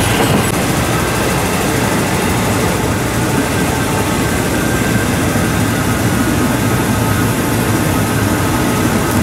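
Steady, loud rumble of a train, heard from inside a non-air-conditioned third-class railway carriage.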